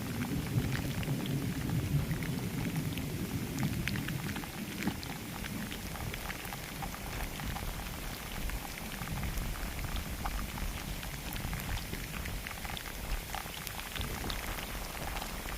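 Steady rain falling, with many separate drops ticking over a continuous hiss and a low rumble that eases after the first few seconds.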